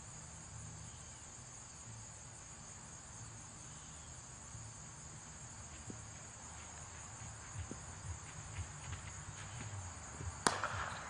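A steady high-pitched chorus of insects, then a single sharp crack near the end as a cricket bat strikes the ball.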